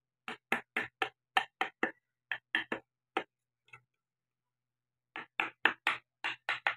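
Quick sharp taps on a carving chisel cutting into wood, about four a second, while shaping the cheeks of a carved face. The tapping pauses for nearly two seconds in the middle, then resumes.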